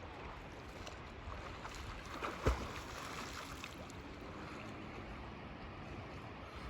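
Water sounds around a canoe paddling down a river, with one sharp knock about two and a half seconds in.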